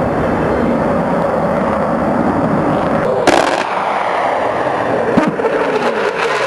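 Fighter jet, an F/A-18 Hornet, flying low past with the loud, crackling rumble of its engines. The sound changes abruptly about three seconds in and again about five seconds in, and after that a falling pitch is heard as the jet moves away.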